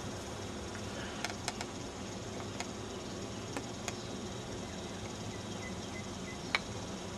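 Steady background hiss with scattered sharp clicks, the loudest about six and a half seconds in, and a few faint high chirps shortly before it.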